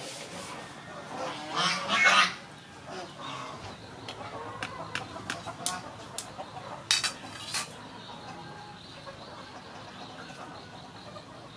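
A farmyard bird calls loudly about two seconds in. Then comes a string of short, sharp taps and clicks as a chicken egg's shell is cracked open by hand.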